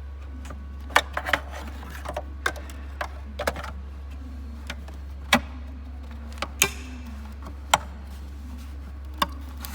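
Irregular sharp plastic clicks and knocks as a brake light bulb holder and its wiring connector are pushed and clipped back into a Peugeot 207's rear light cluster, over a steady low hum.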